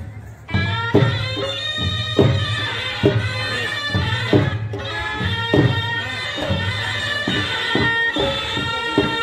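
Chhau dance music: a reed pipe of the shehnai kind playing a sustained, wavering melody over steady drum beats from dhol and dhamsa, about two strokes a second. The music comes in at full strength about half a second in.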